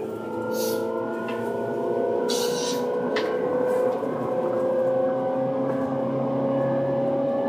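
Tobu 9000 series electric train running, heard from on board: a steady motor whine of several tones that rises slowly in pitch throughout. Brief hissing bursts come about a second in and again at about two and a half seconds, with a click just after.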